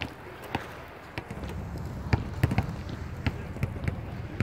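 Hockey stick blade knocking an inline hockey ball while stickhandling: sharp, irregular knocks about two or three a second, over the low rumble of inline skate wheels rolling on asphalt that sets in about a second in.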